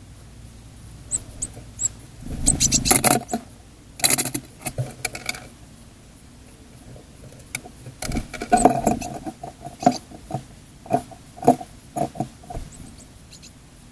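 Small birds feeding on a feeder tray right at the microphone: beaks pecking and tapping and feet scratching on the tray and seed, in several irregular spells of rapid taps.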